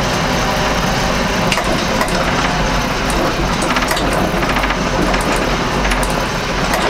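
Massey Ferguson 3075 tractor's diesel engine running steadily as the tractor drives slowly, with scattered short rattling clicks over it.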